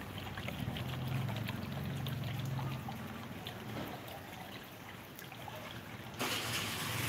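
Water bubbling up in a large glazed earthenware jar fountain and trickling over its rim into a pond. A low drone joins about a second in for a couple of seconds, and a brief loud rush of noise comes near the end.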